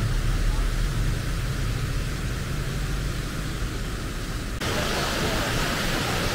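Steady rushing noise with a low rumble, changing abruptly about four and a half seconds in to a brighter, even hiss.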